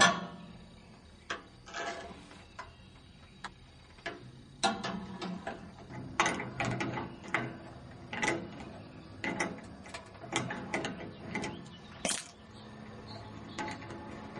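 Scrap metal being handled: about a dozen irregular clanks and rattles, the loudest at the very start and about twelve seconds in.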